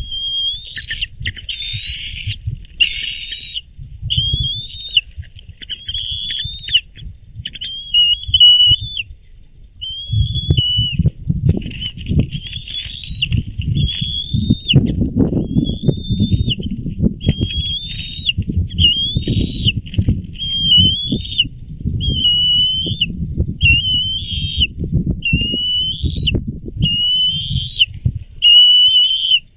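Bald eagles calling on the nest: a long run of high, thin whistled calls, about one a second, over a low rumbling noise that grows stronger about ten seconds in.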